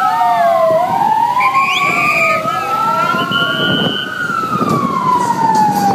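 Sirens of race escort vehicles wailing, at least two of them slowly sliding up and down out of step so their pitches cross, over a low vehicle rumble.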